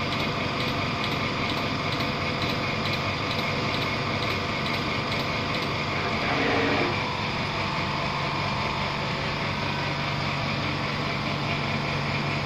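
Automatic dispensing robot running, its axis motors and drives giving a steady mechanical hum with light regular ticking at the start. About six seconds in there is a brief louder whir that falls in pitch as the dispensing head and table move.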